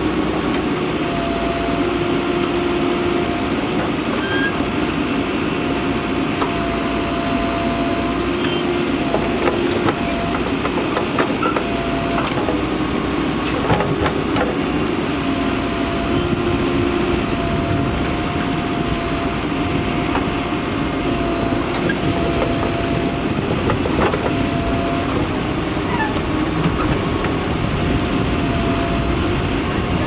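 Mahindra Earthmaster backhoe loader's diesel engine running steadily under load as the backhoe arm digs soil, with a whine that comes and goes and a few short clanks.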